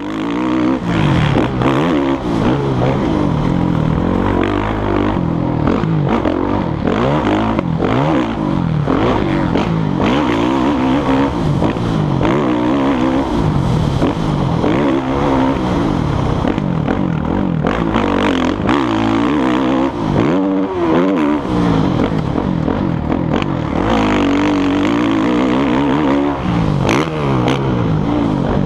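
Motocross dirt bike engine revving hard through the gears, its pitch climbing and dropping back over and over as the rider accelerates, shifts and backs off, picked up close by a helmet-mounted camera. Scattered knocks come through over the engine.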